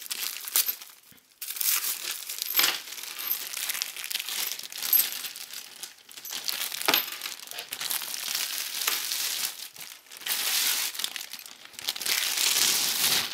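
Clear plastic wrapping crinkling and rustling as a carrying strap is unwrapped, with its metal chain and carabiners clinking now and then.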